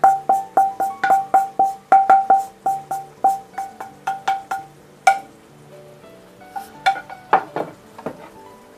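Pestle pounding toasted grated coconut in a mortar: sharp ringing knocks about three a second for roughly five seconds, then slower, scattered strikes.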